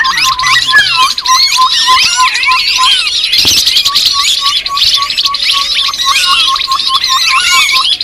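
Bird-lure recording of grey-headed babbler calls: a dense, continuous chatter of overlapping chirps and whistles, over a short clipped note repeated about three times a second.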